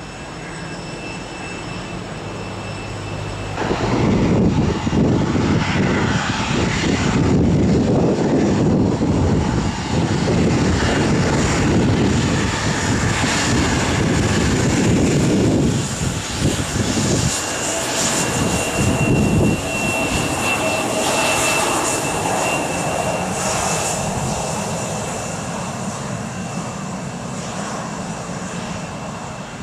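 Airliner's jet engines passing by. The roar swells sharply about four seconds in and stays loud for about twelve seconds, then slowly fades, with a high engine whine lingering as it recedes.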